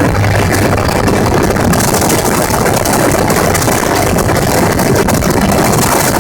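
A gyrocopter in flight: its engine and propeller run at a loud, steady drone, mixed with a constant rush of wind noise.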